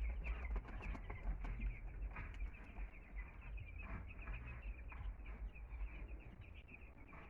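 A flock of two-week-old chicks peeping, many short high cheeps overlapping in quick succession over a low rumble.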